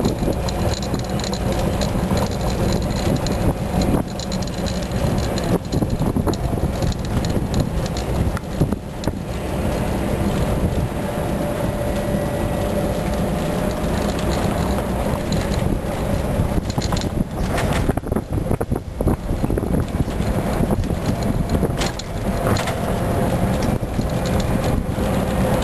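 Steady rumble of an open cart driving on a paved road, with wind buffeting the microphone.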